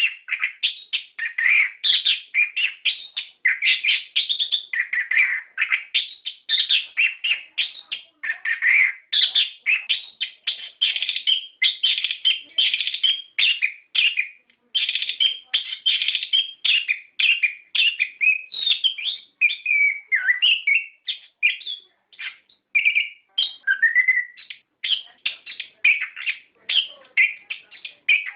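Chestnut-capped thrush (anis kembang) singing a long, continuous 'rolling' song of rapid, varied chirps and whistles, with only brief pauses.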